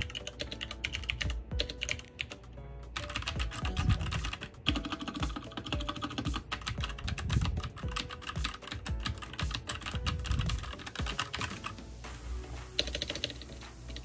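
Fast typing on mechanical keyboards with red (linear) switches: first a Royal Kludge RK68, then, about twelve seconds in, an ASUS ROG Falchion, the two keyboards sounding different. Background music plays underneath.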